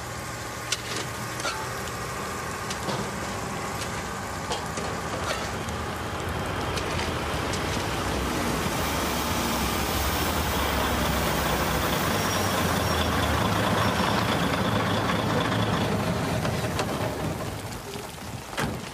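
Lorry engine running steadily under a broad rushing hiss that swells through the middle and eases off near the end.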